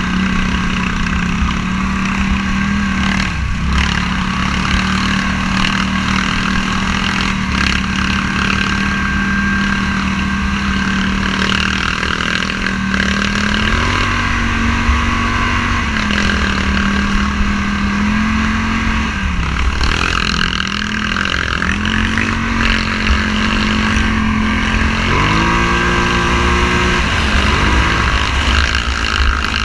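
Motorcycle engine running at a steady speed under way, with wind noise on the microphone; in the last third the engine note dips and climbs several times as the rider eases off and accelerates again.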